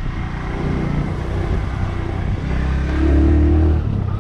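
Motorcycle engine running while the bike is ridden, with a louder stretch about three seconds in as it picks up.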